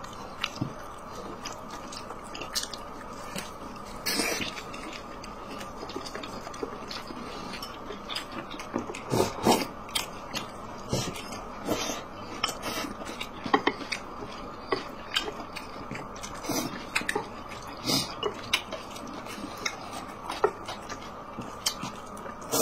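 A person chewing food close to the microphone, with irregular wet mouth clicks and smacks, over a steady faint background hum.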